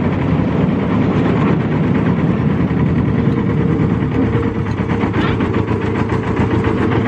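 A 7¼-inch gauge miniature railway train running along its track, heard from a carriage, with its engine running steadily. A steady higher note joins about halfway through.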